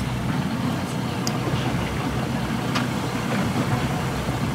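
Boat engine idling, a steady hum, with a couple of faint ticks over it.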